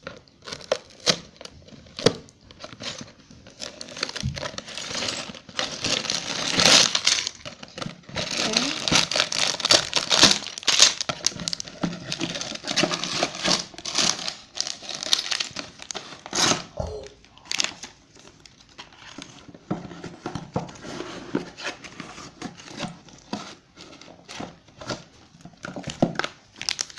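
A Lego set's cardboard box being opened and its clear plastic bags of bricks handled: plastic crinkling and rustling with many scattered clicks and taps, busiest in the middle stretch.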